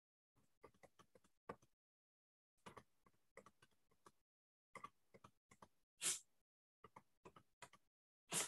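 Faint clicks and taps in short irregular clusters, like typing or handling a computer, heard through a video call's audio that drops to dead silence between them. Two louder taps stand out, about six seconds in and at the very end.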